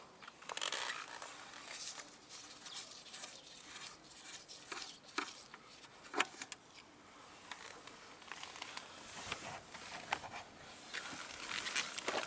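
Scattered light clicks, taps and rustling from gloved hands handling parts on a Daelim Q3 scooter's engine case, with a sharper click about six seconds in.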